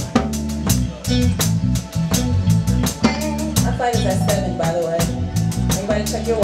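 Live band playing: a drum kit keeping a steady beat over bass notes, with a singer's voice coming in a little past halfway.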